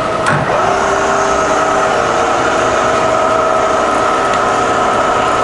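Two Bridgeport variable-speed milling machine heads running together, a steady motor and spindle hum with several steady whining tones. Just after the start there is a click and one head's whine rises quickly back up to pitch.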